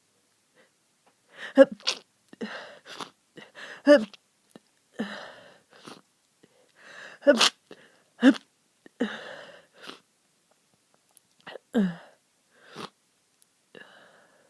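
A person with a heavy, stuffy head cold sneezing several times in a row: loud, sharp sneezes, each set up by a quick breathy in-breath, with sniffles in between.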